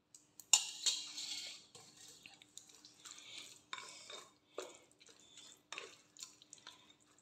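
A spoon scraping and clicking against a glass bowl while stirring thick curd into grated boiled pumpkin, with a sharp click about half a second in and scattered lighter clicks after.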